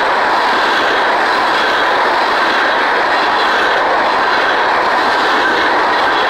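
Empty railroad tank cars of a freight train rolling steadily past close by: the loud, even noise of steel wheels running on the rails.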